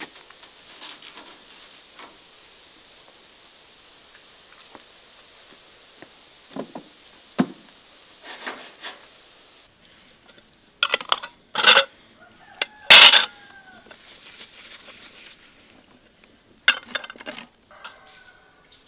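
Canning-jar lids clattering and clinking against each other in an enamel bowl as they are handled and wiped with a cloth. The loudest clatter comes in a few sharp bursts past the middle, and there is a short burst near the end.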